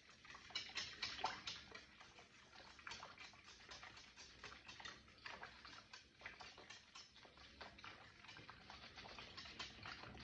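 Faint, quick, irregular clicking of a utensil against the side of a bowl while whisking eggs into milk.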